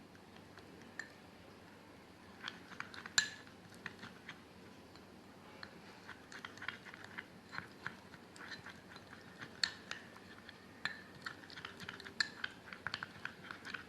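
A spoon clinking and scraping against a small bowl while stirring turmeric powder into honey to make a paste. Light scattered clicks, with one sharper clink about three seconds in, growing more frequent from about six seconds on.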